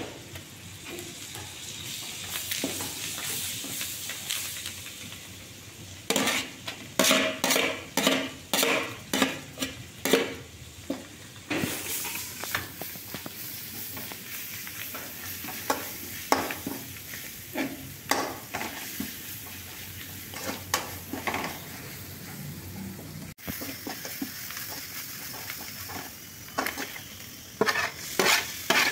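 Spices sizzling in hot oil in an aluminium kadai, with a steel slotted spatula scraping and clacking against the pan as it stirs. From about six seconds in there is a run of strokes at about two a second, then scattered strokes. Near the end comes a denser clatter of the spatula against pan and plate as chopped onions are pushed into the pan.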